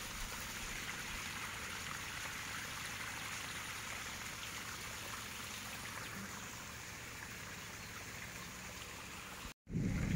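Steady hiss of flowing river water, even and unchanging, which stops abruptly near the end.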